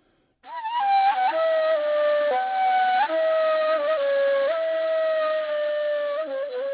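A solo flute begins a slow melody about half a second in, after a moment of near silence, playing held notes joined by short slides and ornaments.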